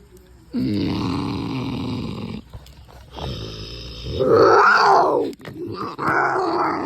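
A person's voice growling and snarling in imitation of a fighting wolf, in three long stretches. The middle one rises and then falls sharply in pitch.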